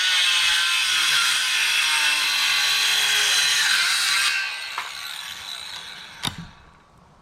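Power saw cutting through a wooden fence post. It stops about four seconds in and winds down, with a single sharp knock near the end.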